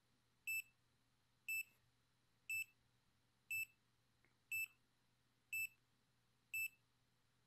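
Short high-pitched electronic beeps, seven of them evenly spaced about once a second, with silence in between, like a digital alarm.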